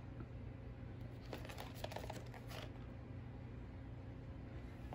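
Faint rustling and light scratches of a cardboard box being handled and turned over in the hand, mostly between about one and three seconds in, over a low steady room hum.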